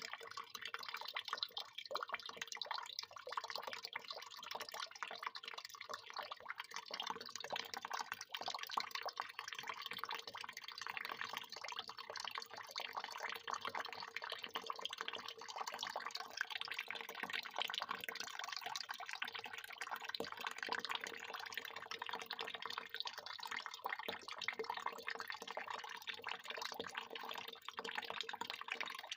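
Water pouring in a steady stream and splashing continuously, with a fine crackle of drops.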